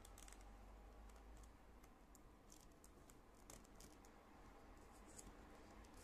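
Faint, scattered light clicks and taps of rolled paper weaving tubes being bent and tucked into place by hand, over near-silent room tone.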